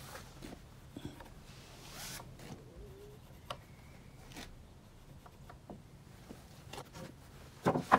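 Handling of pressure-treated 2x6 boards: scattered small taps and rustles as they are lined up and marked, then two louder wooden knocks close together near the end.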